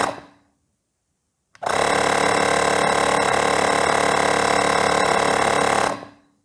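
Ferrex battery-powered mini air compressor running while it pumps up a trailer tyre toward 60 PSI. It stops right at the start and winds down over about half a second. After about a second's pause it starts again and runs steadily for about four seconds, then stops and winds down once more.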